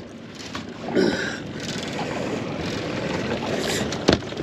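Steady wind and water noise on a small fishing boat, with a short higher-pitched sound about a second in and one sharp knock on the deck near the end.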